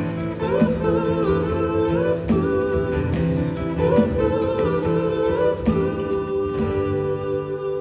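Live gospel music: a vocal group holding wordless harmonies over a band with a steady beat, closing out a song.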